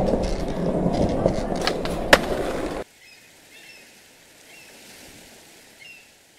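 Skateboard rolling over a hard floor, with a few clacks and one sharp knock about two seconds in. It cuts off suddenly just before three seconds in, leaving a quiet background with a few faint high chirps.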